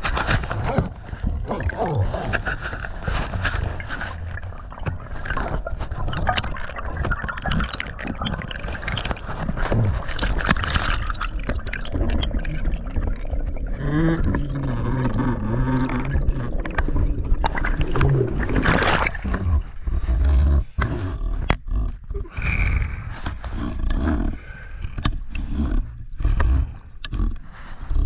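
Muffled underwater noise on a diving camera rising through the water: water rushing over the housing, with many knocks and a low rumble, and a pitched hum for a couple of seconds midway. Near the end the camera breaks the surface.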